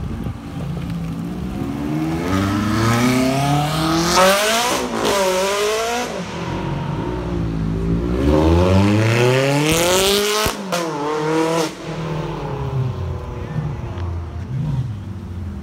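Ferrari 360's V8 accelerating hard away, its pitch climbing in two long pulls, each broken by a sudden drop at a gear change, then falling away as the car moves off.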